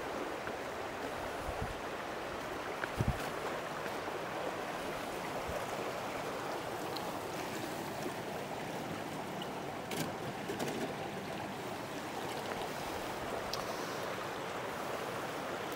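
Shallow rocky mountain stream running steadily, as a plastic water jug is dipped in to fill, with a few brief knocks and splashes about 3 and 10 seconds in.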